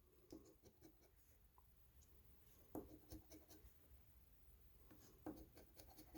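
Faint scratching of a lottery scratch-off ticket's coating in short strokes, with small clusters of scrapes about three seconds in and again about five seconds in.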